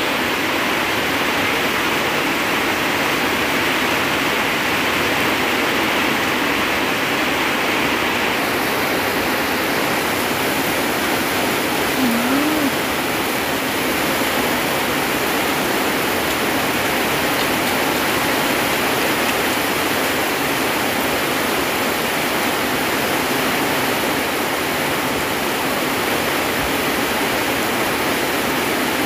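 Heavy rain pouring steadily: a dense, even hiss of drops on wet ground and foliage, turning a little brighter about eight seconds in.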